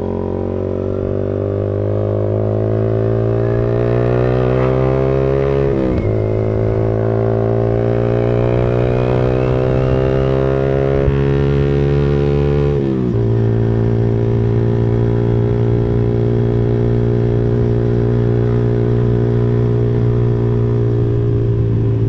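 Motorcycle engine breathing through a freshly fitted Pro Liner aftermarket muffler under way. It pulls up in pitch, drops at a gear change about six seconds in, climbs again, drops at another upshift around thirteen seconds, then holds a steady cruise.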